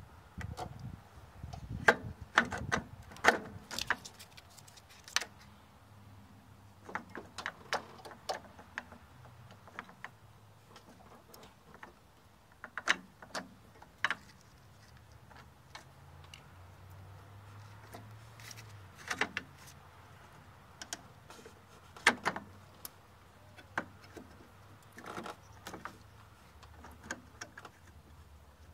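Scattered metallic clicks, taps and clinks in clusters with pauses, from hands fitting a new brake master cylinder onto the brake booster and handling its steel brake lines. The loudest clinks come a few seconds in.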